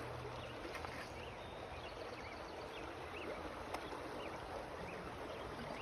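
Creek water running steadily, with faint high chirps repeating about twice a second and a single faint click about four seconds in.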